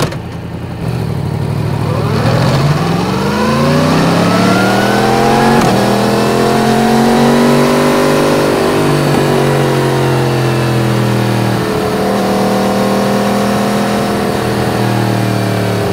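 Yamaha MT-10's crossplane inline-four with an Akrapovič exhaust, picking up revs over a few seconds as the bike accelerates. The revs then ease off slowly and settle into a steady cruise for the last few seconds.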